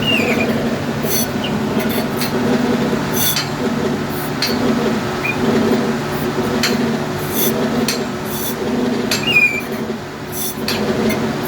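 Gearbox running with a steady hum, with sharp clicks at irregular intervals of roughly a second and a few brief high squeaks: an abnormal gearbox noise.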